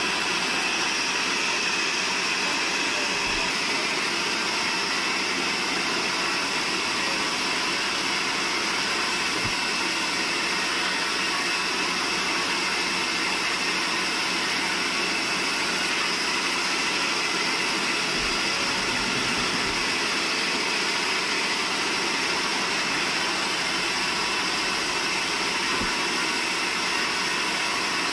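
Band sawmill running steadily, its blade cutting lengthwise through a large log as the timber is fed through.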